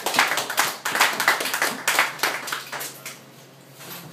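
A small audience clapping, the separate claps easy to pick out, thinning and dying away about three seconds in.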